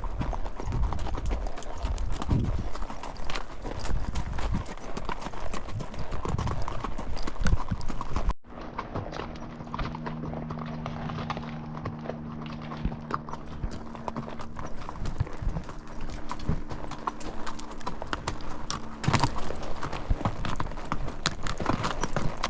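A horse's hooves clip-clopping on a dirt trail, a steady run of hoofbeats. About eight seconds in the sound drops suddenly, and for about ten seconds a steady low hum sits under quieter hoofbeats before they come back louder.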